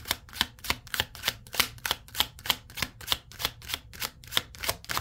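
A tarot deck being shuffled by hand: a steady run of soft card slaps, about three a second.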